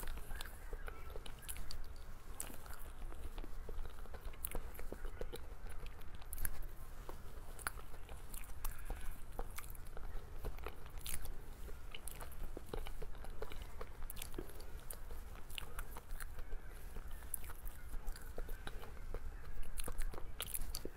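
Close-miked eating of cake: biting and chewing, with many short sharp mouth clicks and crunches scattered throughout.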